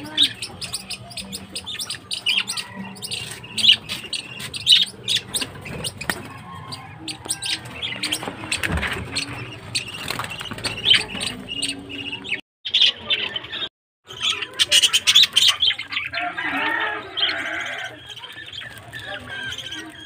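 A flock of budgerigars chattering, a dense stream of short chirps and squawks; the sound cuts out completely twice, briefly, a little past the middle.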